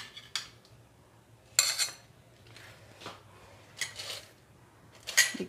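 Steel spoon and whisk clinking and scraping against stainless steel bowls: a handful of short separate clatters, the loudest about a second and a half in and another near the end.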